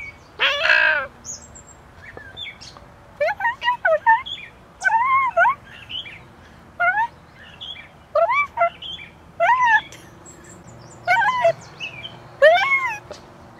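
Bird-like calls: short notes that each rise and fall in pitch, coming in clusters of a few every second or two, with quiet gaps between.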